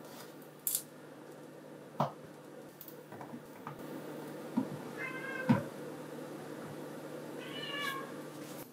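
A cat meowing twice from beyond the kitchen, once about five seconds in and again near the end: the fostered cat quarrelling with the resident cat. A few light knocks as green peppers are laid into a frying pan.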